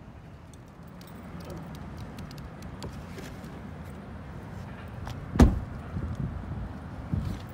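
Outdoor background noise with a steady low rumble, broken by one sharp thump about five seconds in and a few softer knocks after it.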